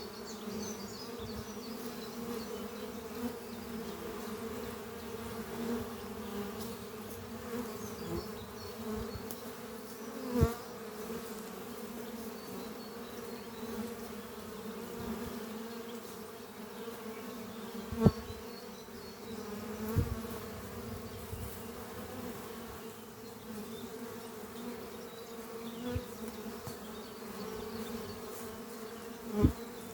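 Honeybees flying at a busy hive entrance, a steady many-bee buzz. A few times a single bee passes close, giving a brief louder swell of buzzing.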